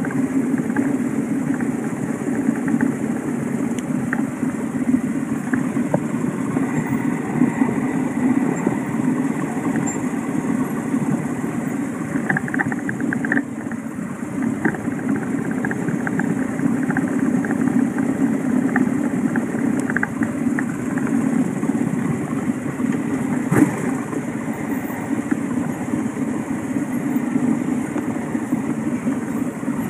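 Motorcycle engine running steadily at low revs as the bike rolls slowly, with one sharp click about two-thirds of the way through.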